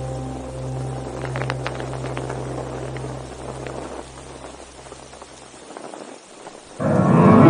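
Background music: a held chord dies away over about five seconds, then a louder new passage starts abruptly near the end, with notes sliding upward.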